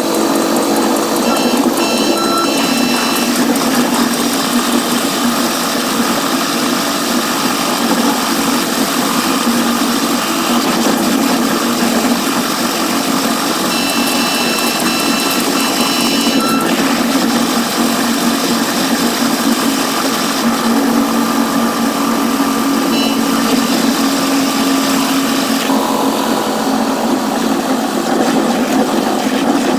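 Steady running noise of a Caltrain commuter train heard from its gallery cab car, sped up fourfold so it sounds high and buzzy, with short high tones coming and going a few times.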